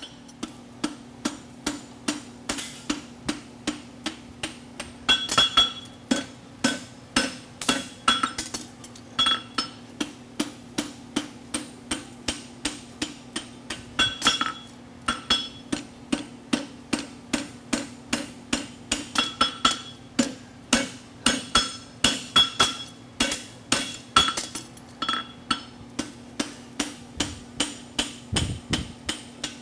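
Hand hammer striking red-hot horseshoe steel on an anvil, about two blows a second, some blows ringing off the anvil, as a draft horseshoe is shaped at the forge. A steady low hum runs underneath.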